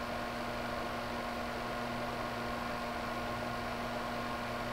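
Steady low electrical hum over a faint hiss, with no distinct events.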